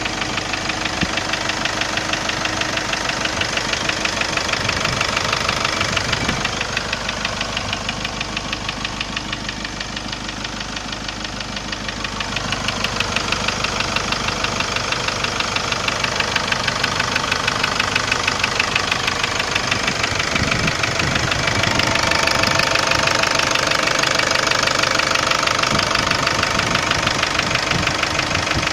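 Kia Sorento engine running with a fast, regular knock, heard with the engine hot.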